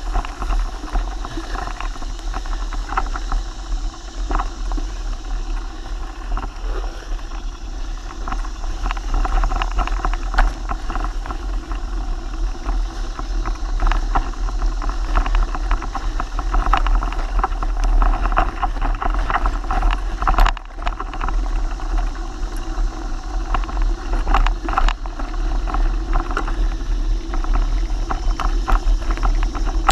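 Steady low wind rumble on the microphone of a camera riding on a mountain bike, with frequent rattles and knocks as the bike rolls over a rough, grassy dirt trail.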